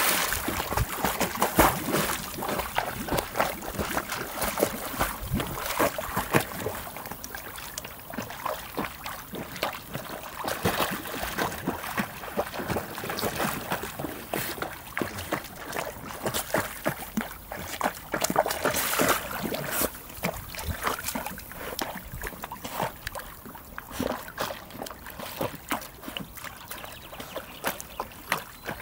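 A Lagotto Romagnolo dog swimming in a lake, its paddling churning the water with a steady run of irregular splashes and lapping, loudest in the first couple of seconds.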